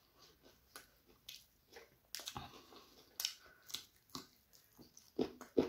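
Crisp puffed rice (muri) crunching as it is chewed, in short, irregular crackles.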